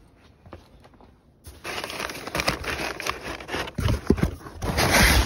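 Loud rustling and crinkling of packing material, with a few dull knocks, as a part is dug out of a box. It starts about a second and a half in, after a quiet stretch with faint clicks.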